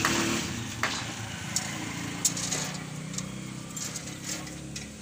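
Steel rebar cage being lifted and shifted by hand, its bars giving several sharp metallic clicks, over a small engine running steadily.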